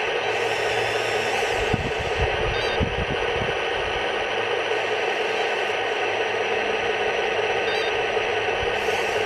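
Steady, noisy engine-running sound from an RC model tank's sound unit, played through its small speaker, with a few low thumps about two to three and a half seconds in.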